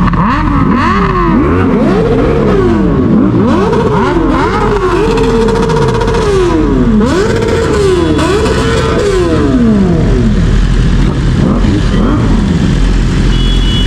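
Sport motorcycle engines revved hard over and over, several at once, their pitch climbing and dropping about once a second, with revs held high for a moment now and then.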